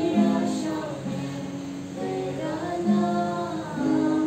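A woman sings a slow melody in long held notes over her own strummed acoustic guitar.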